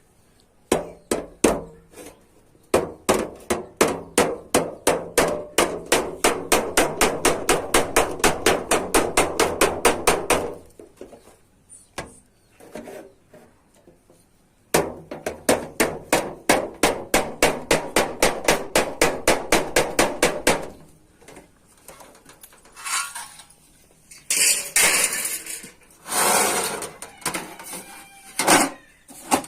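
Hand hammer striking a sheet-metal pan being formed, in two long runs of fast, even blows several a second with a pause between them. A few separate noisier sounds follow near the end.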